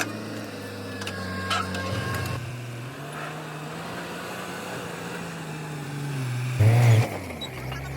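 Heavy diesel vehicle engine running steadily, its pitch shifting a little with load or speed. Near the end comes a loud low burst lasting about half a second.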